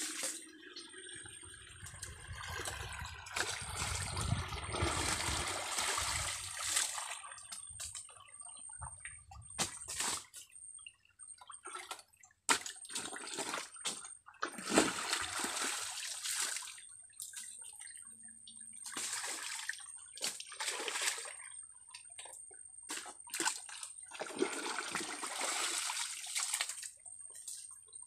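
Muddy creek water sloshing and splashing around a man wading knee-deep and digging into soft mud with his hands, in irregular bursts separated by quieter gaps, with a few sharp clicks and slaps.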